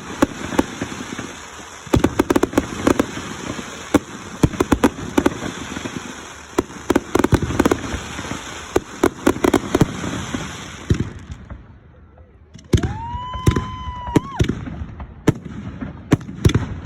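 Fireworks going off in rapid succession: dense sharp bangs and crackling. Two-thirds of the way in there is a short lull, then a long whistle that rises and holds its pitch for about a second and a half before more bangs.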